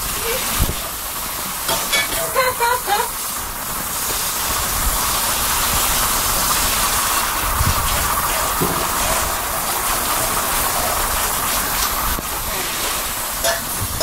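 Kitchen tap running, water rushing into and over a steel double-boiler pot as it is rinsed out. The steady rush sets in a few seconds in and drops away near the end.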